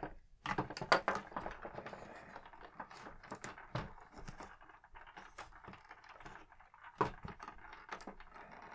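Small plastic clicks, taps and rattles of a plastic X-Wing toy being handled as its laser cannons are pulled off and pushed onto the wingtips. The clicks are scattered, with a sharper one about a second in and another about seven seconds in.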